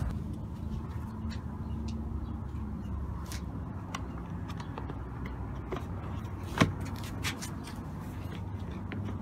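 A plastic fog-light cover is pressed into a 2011 Toyota Corolla's plastic front bumper cover, giving light clicks of plastic on plastic and one sharp snap about two thirds of the way through as it clips into place. A steady low hum runs underneath.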